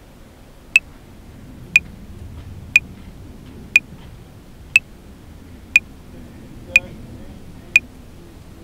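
Metronome clicking at 60 bpm, one short, sharp, high-pitched click every second, starting about a second in after a stretch without clicks. A low background rumble runs underneath.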